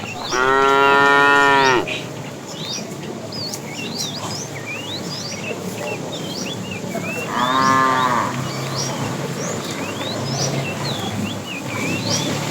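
Cattle mooing: one long, loud moo about half a second in and a shorter one about seven seconds in. Small birds chirp between the calls.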